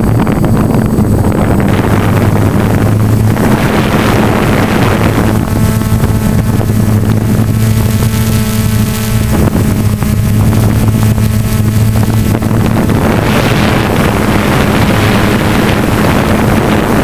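Hexacopter's six electric motors and propellers droning steadily as it hovers, heard from its onboard camera, with wind rushing over the microphone at times, strongest near the start and near the end.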